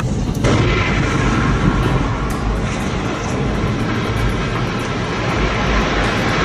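A large explosion: a sudden blast about half a second in, followed by continuous heavy rumbling as the blast cloud billows up.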